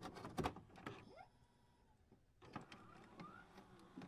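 Faint electronic sound effects for a loading-screen animation: scattered clicks and a couple of short rising whines, with a brief quiet gap partway through.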